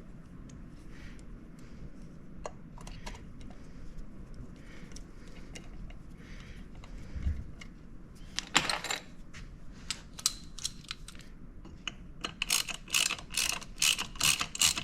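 Hand tools working on a chainsaw's muffler: faint scattered clicks and taps at first, then a ratchet wrench clicking rapidly, several clicks a second, starting about two-thirds of the way in.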